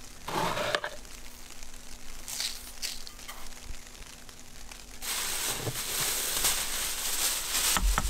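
A short crunch about half a second in, then from about five seconds a plastic sheet crinkling and rustling as it is pulled back and handled.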